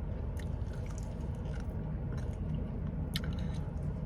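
Close-up chewing of chicken: wet mouth sounds and small clicks over a steady low hum, with a sharper click a little after three seconds.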